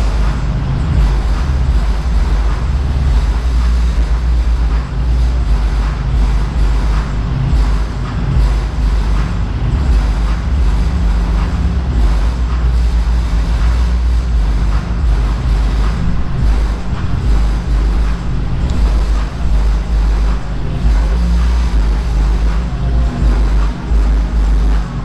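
Music with a heavy bass beat played loud through a car audio system driven by a freshly repaired Kenwood amplifier, the deep bass far louder than anything else.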